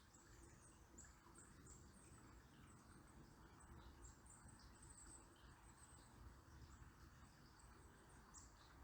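Faint, very high, thin bird calls: many short chirps, some slurring downward, scattered through the whole stretch over a soft, steady murmur of river water.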